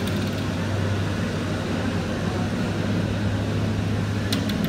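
Zamboni ice resurfacer running steadily as it floods the ice, a constant low hum over a wash of noise, with a couple of faint clicks near the end.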